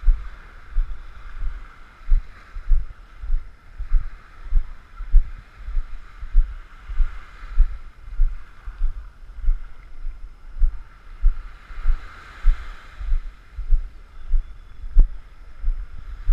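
Walking footsteps on sand, heard as regular low thuds a little under two a second where each step jolts a body-worn GoPro. Under them is a steady hiss of small waves washing the shore, swelling and fading.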